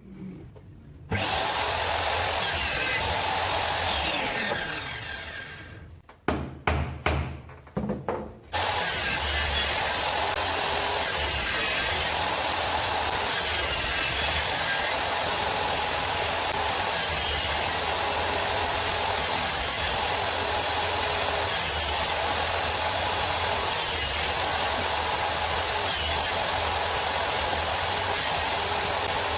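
An electric power tool running under load. It starts about a second in and winds down with a falling pitch a few seconds later, gives a few short bursts, then runs steadily with a slight change that repeats every couple of seconds.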